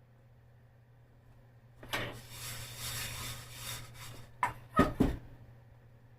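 Kitchen handling sounds: about two seconds of rubbing or scraping, then three sharp knocks in quick succession, over a faint steady low hum.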